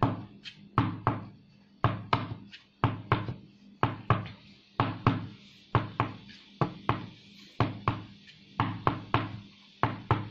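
Rubber mixing bowl of wet dental stone knocked repeatedly against the ground, about three dull knocks a second, to drive trapped air bubbles out of the mix so the cast sets without porosity.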